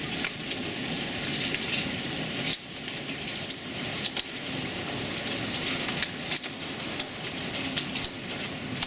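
Heavy storm rain and wind, a steady rushing wash broken by scattered sharp ticks of drops striking a hard surface.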